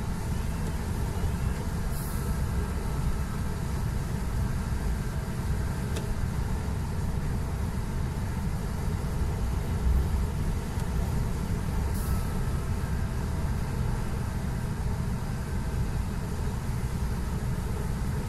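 Steady low rumble of a long-haul truck's engine and tyres on a wet road, heard inside the cab, with two brief high ticks about two seconds in and again ten seconds later.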